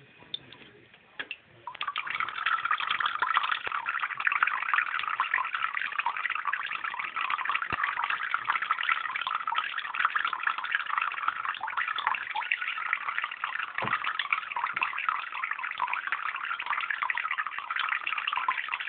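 A few drips, then the bathroom sink faucet opens about two seconds in and a thin stream of tap water runs steadily into the basin.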